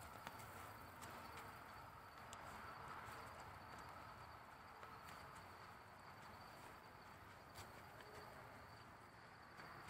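Near silence: faint woodland ambience with a steady, high, thin insect drone and a few faint ticks.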